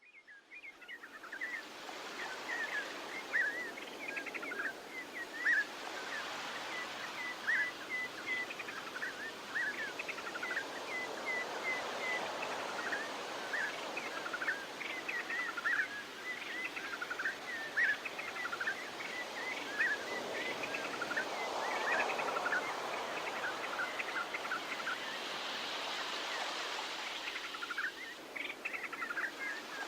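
Small birds chirping rapidly and continuously over a steady rushing wash of background noise. The sound fades in at the start, and the wash swells twice in the later part.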